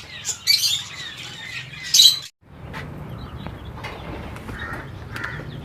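Caged birds squawking in three short, shrill bursts in the first two seconds. The sound then cuts off suddenly and gives way to a low steady hum with faint bird chirps.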